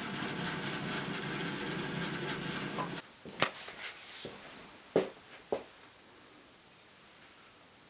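Bandsaw running and cutting through a softwood block, a steady machine sound that stops abruptly about three seconds in. Then a few short knocks and clicks as the sawn wooden parts and a glue bottle are handled on the workbench, the loudest about five seconds in, then quiet room tone.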